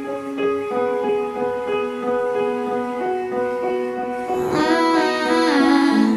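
Background music from a slow pop ballad, an instrumental passage of held keyboard notes that change every half second or so. A gliding sweep of sound rises and falls about four seconds in.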